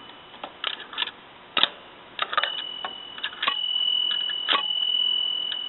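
Small mechanical clicks from a 1940 Royal Quiet De Luxe typewriter's bell mechanism, then its light-sounding bell is struck about three times. Its single high ring is renewed with each strike and keeps sounding.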